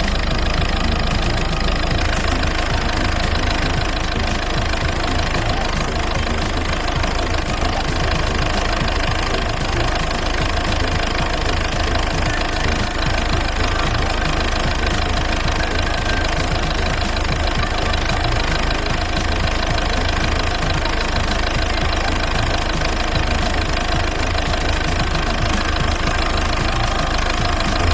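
1.6 HDi four-cylinder common-rail diesel engine idling steadily with a knocking clatter.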